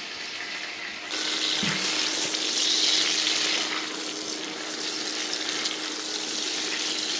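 Raw chicken pieces and fried onions sizzling in hot oil in a pot as they are stirred with a spatula; the sizzling becomes much louder about a second in.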